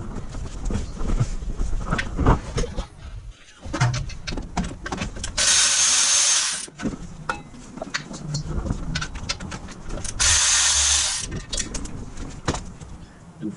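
Impact wrench spinning off the clutch cover bolts in two bursts of about a second each, about five and ten seconds in, with metal clinks and knocks of tools and bolts between them.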